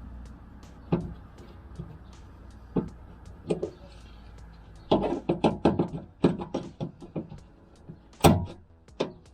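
Sharp plastic clicks and knocks as door trim moulding and its plastic clips on a Toyota Land Cruiser Prado 120 door are pried and worked loose with a tool: a few single clicks, then a quick run of them midway, with the loudest knock near the end.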